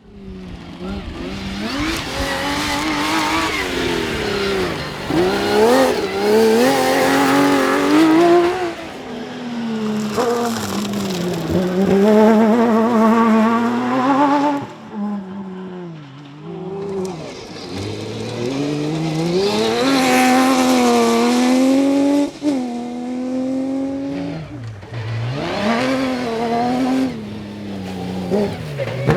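Rally car engines revving hard. The pitch repeatedly climbs and falls sharply as the cars accelerate, change gear and lift off, with a brief dip in loudness about halfway through.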